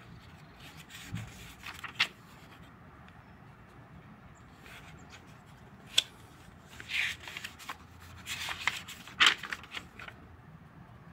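Thin paper pages of a simple notebook being turned by hand: papery rustles and swishes, with three sharp snaps as pages flip over.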